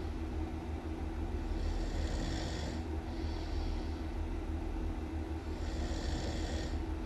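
A person snoring loudly in a slow, even rhythm, with a hissing breath about every four seconds over a steady low rumble.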